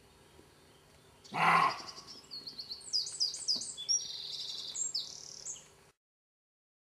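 A single short, harsh bark from a European roe deer about a second and a half in, the loudest sound here, followed by a small bird singing a quick run of repeated high chirps. The sound cuts off abruptly near the end.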